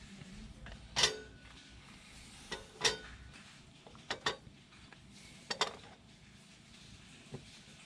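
Sharp metallic clinks of a wire rack in a smoking pot as slices of luncheon meat are set on it, about six knocks spread unevenly, some ringing briefly.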